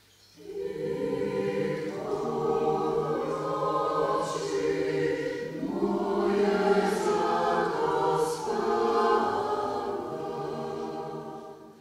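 A mixed choir of women's and men's voices singing in harmony in long held chords, phrase after phrase, fading out near the end.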